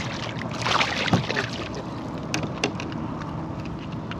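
A small redfish on the line splashing at the surface as it is pulled up, about a second in, followed by a few sharp clicks and knocks as it is handled over the plastic kayak.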